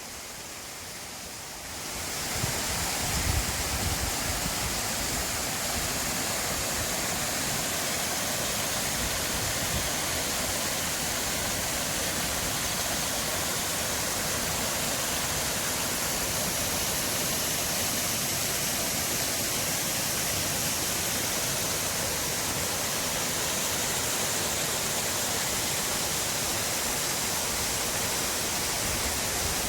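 Forest stream or small waterfall rushing steadily. It fades in over the first two seconds, with a brief low rumble of wind a couple of seconds in.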